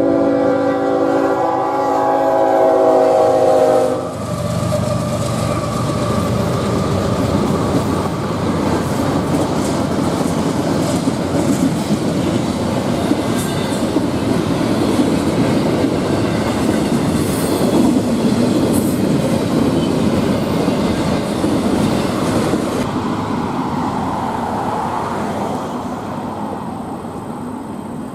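Locomotive horn sounding one long chord of several notes for about four seconds, then the train rolling past with a steady rumble of wheels on the rails that fades a little near the end.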